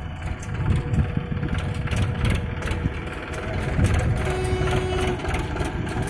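Heavy diesel engine running with a steady low rumble, with scattered short clicks over it.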